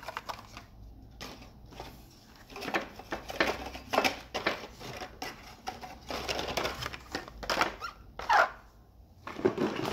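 Plastic blister-card packaging of die-cast toy cars and the cardboard shipping box being handled: irregular crinkles, clicks and rustles, with one sharper, louder crackle about eight seconds in.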